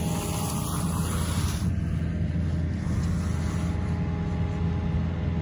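An excavator's diesel engine running steadily. A hiss over the first second and a half cuts off suddenly.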